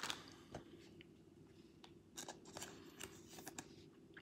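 Faint, scattered clicks and light scraping of trading cards being handled on a table.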